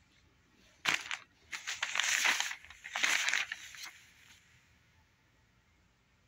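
Newspaper pages rustling as they are turned and shifted, in three bursts starting about a second in and dying away by about four seconds.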